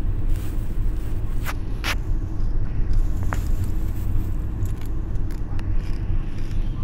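Steady low rumble of a car's engine and tyres on a paved road, heard from inside the cabin, with a few sharp clicks in the first half.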